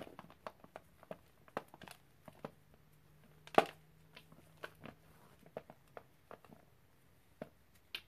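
Gloved fingers crumbling dry, chalky powder chunks onto a plate: soft irregular crunches and crackles, with one sharper crunch about three and a half seconds in.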